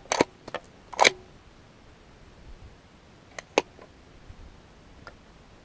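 Desert Tech SRS-A1 bolt-action bullpup rifle's bolt being worked after a shot: a quick run of sharp metal clicks in the first second, the loudest about a second in, then two more clicks about three and a half seconds in.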